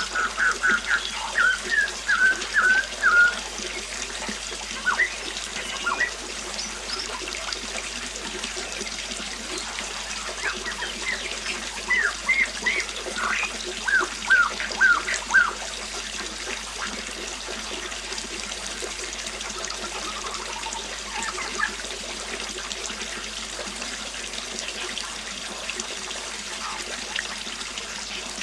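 A river flowing with a steady rush of water, and songbirds chirping over it in bursts: a quick run of chirps at the start, a longer run in the middle, and a few fainter notes later.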